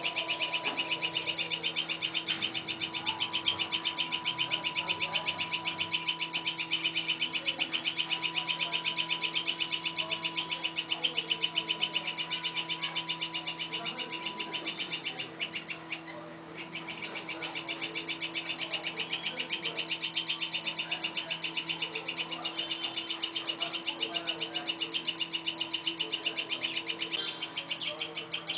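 A bird chirping in a fast, unbroken series of high calls, pausing once for about a second a little past halfway. A steady low hum runs underneath.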